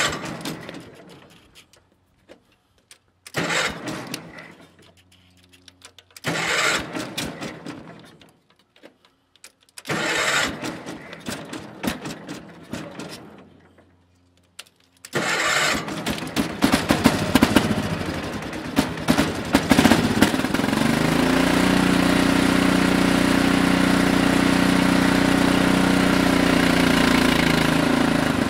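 Cast-iron Kohler K341 16 hp single-cylinder engine on an Allis Chalmers 416 garden tractor being started on its electric starter: four cranking attempts that don't catch, then on the fifth, about 15 seconds in, it fires. It runs unevenly for a few seconds, then settles into steady running about 20 seconds in.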